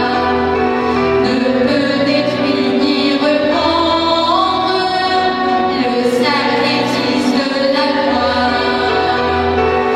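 Choir singing in sustained held chords that shift in pitch, with organ accompaniment holding low steady notes beneath.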